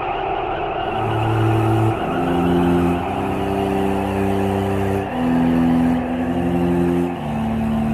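Slow background music of low, sustained bowed-string notes, the pitch changing about once a second.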